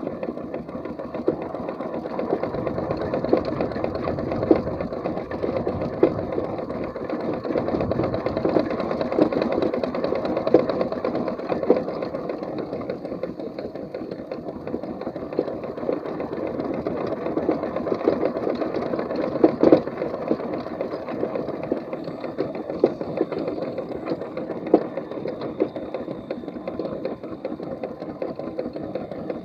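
A 4-inch scale McLaren steam traction engine running as it is driven along, making a steady, rapid mechanical chatter with a few sharper knocks.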